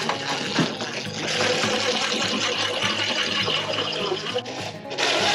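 Cordless power driver running screws into an RV window's frame, its motor whirring steadily with a high whine. Near the end it breaks off into a louder, harsher run.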